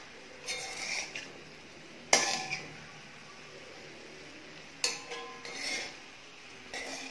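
Steel spoon scraping and clinking against a kadai as fried rice is gently folded, in a handful of separate strokes. The sharpest clink comes about two seconds in.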